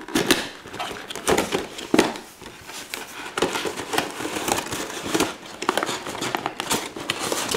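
Cardboard box flap opened and a thin plastic blister tray slid out and handled: irregular rustling, crinkling and sharp clicks of cardboard and plastic.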